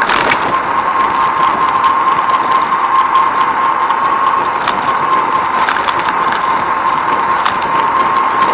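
Ride noise from a bicycle rolling along a paved path, picked up by a camera mounted on the bike: a steady hiss with a constant high whine and a few scattered small clicks and rattles.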